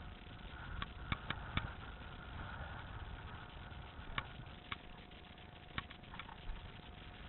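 Scattered sharp clicks or snaps, about eight of them at irregular intervals, over a faint steady hum.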